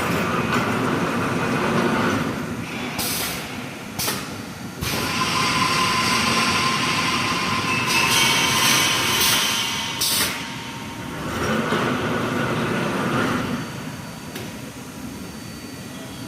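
Automatic reinforcing wire mesh welding machine running: a continuous mechanical rumble broken by several short hisses of compressed air from its pneumatic welding heads.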